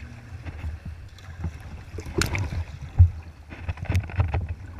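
Choppy water slapping and splashing against a sea kayak's hull as it rides through waves, over a steady low wind rumble on the microphone. One loud thump about three seconds in.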